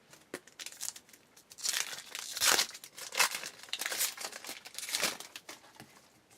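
A pack of baseball cards being torn open and its wrapper crinkled and crumpled by hand, in several rustling bursts, loudest in the middle.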